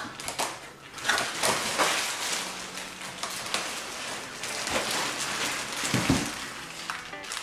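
Clear plastic bag crinkling and rustling around a hard lens case as it is handled and pulled out of a cardboard box, with a dull thump about six seconds in.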